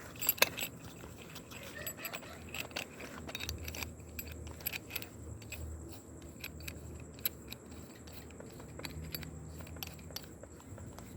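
Small metal clicks and rattles of a bit being handled and pushed into a drill's quick-release chuck, with a sharp click about half a second in, over a faint steady low hum.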